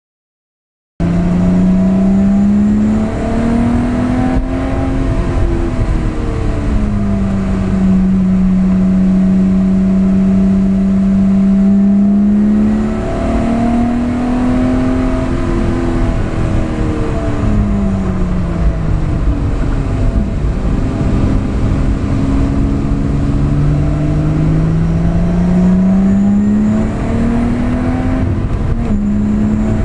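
Lotus Exige LF1's supercharged 3.5-litre V6 heard from inside the cabin, starting about a second in. The engine note climbs, holds steady for several seconds, then drops away and climbs again as the car accelerates and slows on track.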